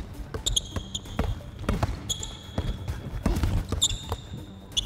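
Basketball dribbled hard on a hardwood court, a thud roughly every half second, with short high sneaker squeaks four or five times as the players cut and slide.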